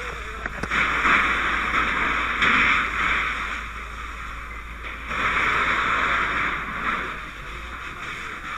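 Fire hose nozzle spraying water in two spells of about two seconds each, one starting about a second in and the other about five seconds in.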